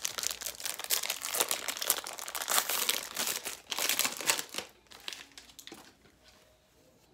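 Plastic wrapper of a baseball card pack crinkling and tearing as it is opened, a dense crackle for about four and a half seconds that then dies down.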